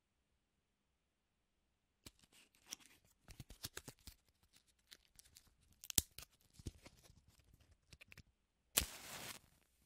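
Matches handled with a run of small clicks and rattles, then a match struck near the end: one sharp scrape and a short hiss as it flares.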